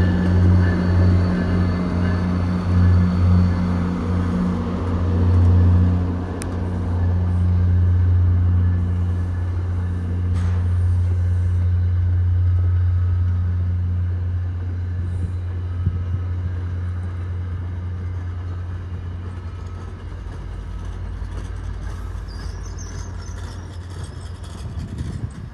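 MBTA commuter train rolling slowly past with a loud, steady low drone that fades as it goes by. Near the end the last car gives off weird metal sounds, which the uploader guesses come from a bad bearing.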